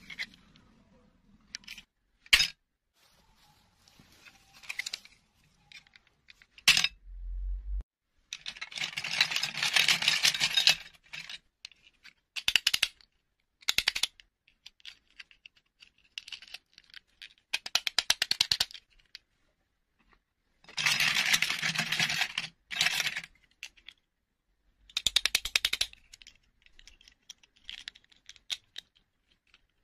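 Small plastic toy pieces, mini dolls and their plastic dresses, clicking and rattling as hands handle them: a few single sharp clicks, then bursts of rapid clicking a second or two long with quiet gaps between.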